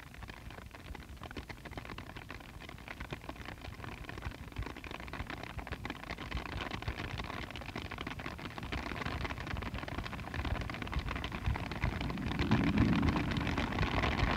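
Experimental drone/noise recording built from storm sounds and live electronics: a dense, crackling, rain-like noise texture that swells steadily louder, with a low hum coming up near the end.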